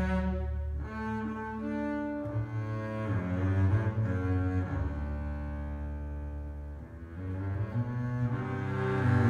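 Double bass played with the bow, a slow line of long sustained notes, with piano accompaniment. The sound drops away about seven seconds in, then swells again near the end.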